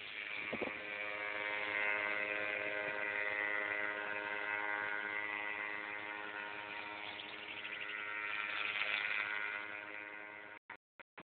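Tandem paramotor's engine and propeller running steadily in flight, the drone swelling and fading a little, then cutting in and out in short gaps near the end.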